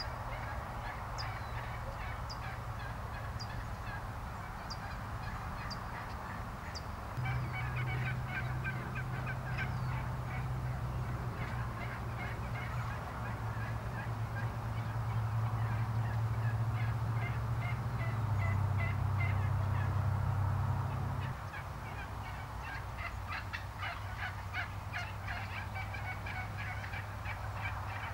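Wild turkey toms gobbling, with repeated rapid rattling runs of notes. A small bird gives high single chirps about once a second in the first few seconds, over a steady low hum that grows louder in the middle.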